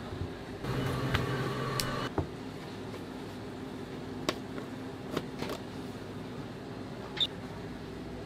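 Steady low hum of kitchen machinery, louder for a moment near the start, with scattered light taps and clicks as a cake board and a plastic container are handled on a metal cake turntable.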